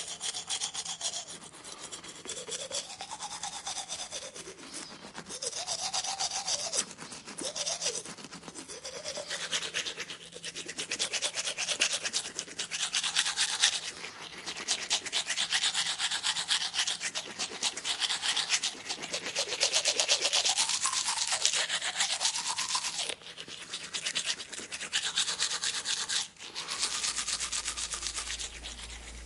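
Rapid scrubbing, rasping strokes that swell and fade every second or two, with a pitch that rises and falls under them. A low rumble comes in near the end.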